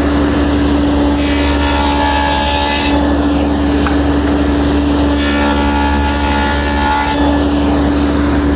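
Table saw with a stacked dado head running at a steady hum. It cuts twice into the end of a birch plywood test piece to form a tenon: each pass lasts about two seconds, the first starting about a second in and the second about five seconds in.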